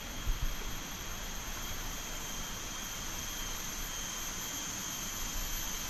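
Steady jungle insect chorus, a continuous high buzz made of several steady pitches held at an even level.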